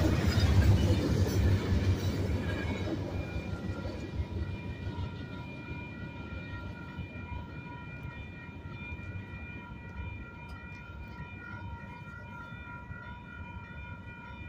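Freight cars of a passing freight train rolling over the tracks, a rumble and clatter that fades away over the first few seconds as the end of the train goes by. As the train noise dies down, the railroad grade-crossing warning bell is heard ringing steadily.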